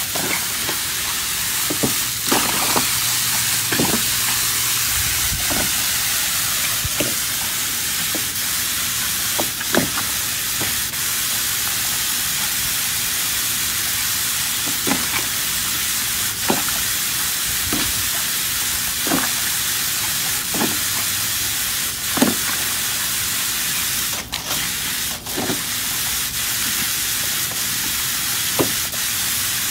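Garden hose spray nozzle hissing steadily as water pours into a plastic kiddie pool, with brief splashes every second or two from a puppy jumping through the stream.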